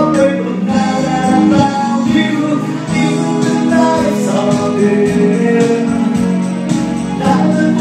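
A man singing a soft-rock ballad into a microphone over a recorded backing track.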